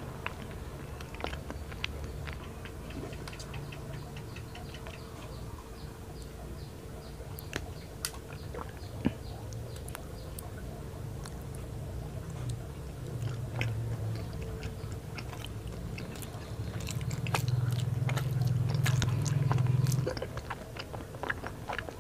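Close-up chewing and biting of soft mochi daifuku, with many small wet mouth clicks and smacks. A louder low rumble rises for about three seconds near the end, then drops away.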